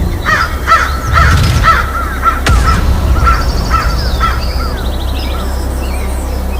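Repeated bird calls, about two a second, dying away after about five seconds over a steady low hum, with one sharp click partway through.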